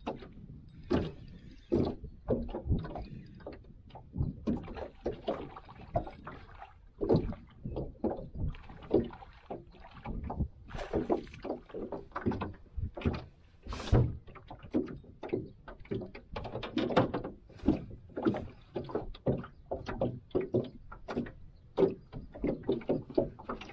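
Water slapping and knocking against the hull of a small metal boat, a quick irregular run of knocks and splashes.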